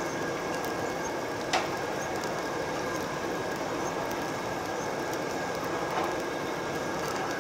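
Steady whoosh of a Korean BBQ table's overhead extractor hood fan, with a steady high hum running through it. One sharp click about a second and a half in, and a fainter one near the end.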